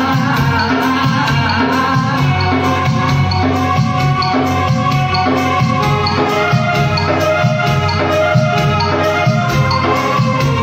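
Live band music: an electronic keyboard holding organ-like chords and melody over a steady beat from an electronic drum pad struck with sticks, with a tambourine-like jingle about twice a second.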